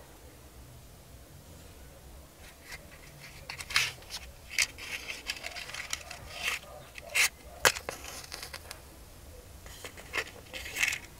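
Small cardboard matchbox being handled and a wooden match struck on it: a run of small scrapes and clicks over several seconds, the sharpest about two-thirds of the way through.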